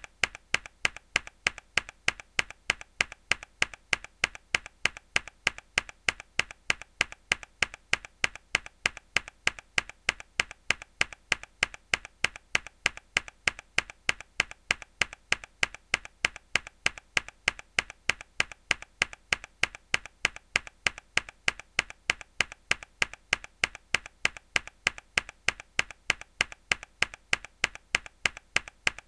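A single hard key press on a mechanical keyboard, looped: a sharp click repeating at an even pace of roughly two to three a second.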